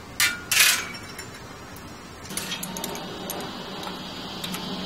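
Metal roller drive chain of a motorized bicycle rattling and clinking as it is handled and fed onto the sprocket, with two sharp jangles in the first second. A steady low hum comes in about halfway through.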